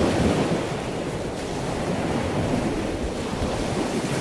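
Sea waves washing in, with wind buffeting the microphone.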